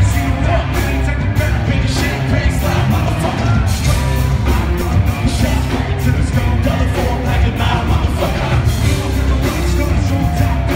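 A live rock band playing loud, with drums, electric guitar, heavy bass and a vocalist shouting into a microphone, heard from within the audience.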